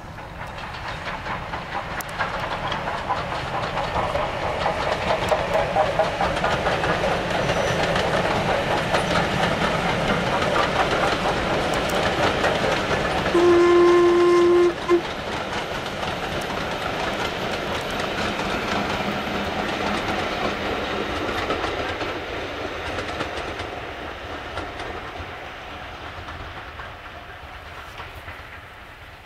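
LMS Black 5 4-6-0 steam locomotive No 45379 passing at speed with a train of coaches, its crisp exhaust and the rolling of wheels on rails building up, holding, then fading as it runs away. About halfway through it sounds its sonorous Stanier whistle: one long blast followed at once by a short toot.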